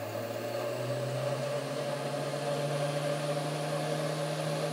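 DynaMyte 2800 milling machine spindle, driven by a DMM servo motor, running up to speed in high range: a steady whine that rises in pitch over the first two seconds or so, then holds level.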